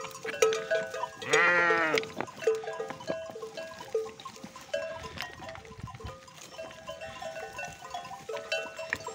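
Bells on a grazing flock of sheep clinking irregularly, with one long sheep bleat about a second and a half in.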